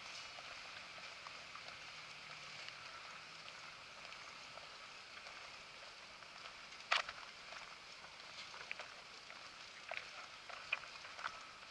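Faint steady outdoor background hiss, with one sharp click about seven seconds in and a few lighter ticks near the end.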